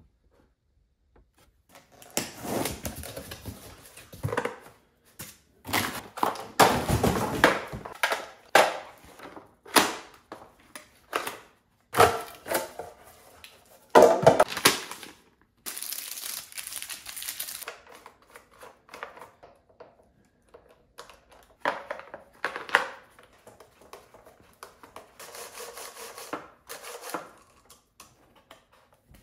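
Handling noise as a cordless chainsaw is unpacked and put together: plastic packaging crinkling and tearing, and hard plastic parts knocking and clicking, in irregular bursts with short pauses.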